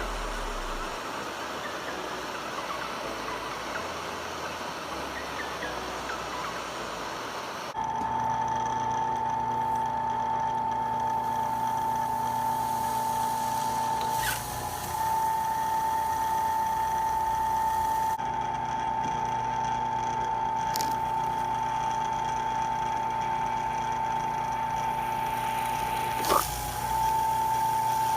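An electric drill motor running with a steady, even whine, starting about eight seconds in and dipping briefly twice with a click. Before it starts there is a rough hissing noise.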